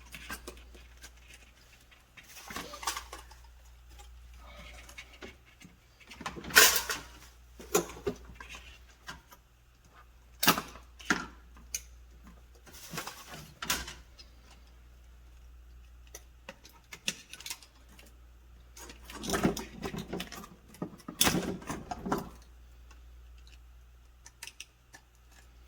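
Hand-handling noises from working on a refrigerator's replacement control board: scattered clicks, knocks and rustles at irregular moments, busiest in two bursts in the second half, over a faint steady low hum.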